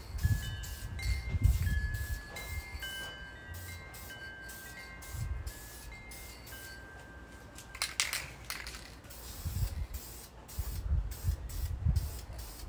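Aerosol can of VHT chassis paint spraying in short hissing bursts, with one longer, louder spray about eight seconds in, laying on a coat. Light ringing chime tones sound in the first half.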